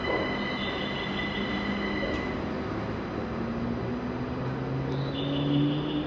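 Linimo HSST maglev train pulling out and accelerating, its linear-motor drive giving a whine that rises slowly and steadily in pitch over a low rumble.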